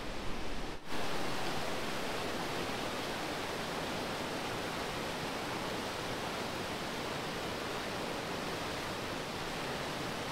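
Rushing white water of a river's falls and rapids pouring over a low weir, a loud, steady rush; the river is running high and fast after heavy rain. The sound breaks off for an instant less than a second in, then carries on evenly.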